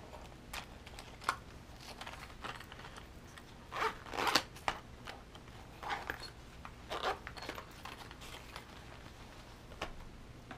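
Small plastic ink pads clicking and rustling as they are handled and packed into a soft zippered pouch. Short zipper pulls come in among scattered clicks, loudest about four seconds in and again around seven.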